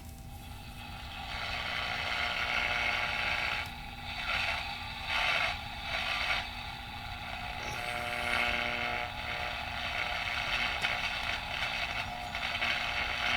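Tube AM radio's speaker giving out static and hiss between stations as it is tuned, swelling and dropping several times, with faint steady whistle tones about eight seconds in.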